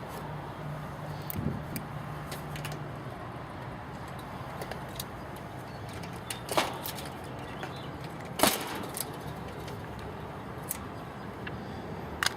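Scattered small clicks and two sharper knocks, about halfway through and two seconds later, from wires being pulled off the terminals of an air-conditioner's old dual start capacitor. A low hum fades out about three seconds in.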